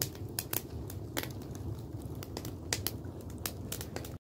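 Wood fire burning old wooden floorboards, crackling with frequent irregular sharp pops over a steady low rumble.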